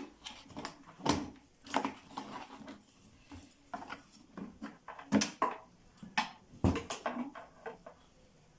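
Irregular clicks, knocks and rattles of hard plastic vacuum cleaner parts being handled as the drum is checked for the hose pipe packed inside, with a few louder knocks in the second half.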